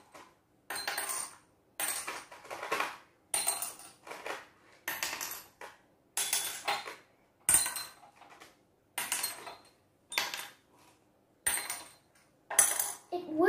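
Small objects dropped one at a time into empty glass jars. Each lands with a sharp clink and a brief glassy ring, in a steady run of about one or two clinks a second.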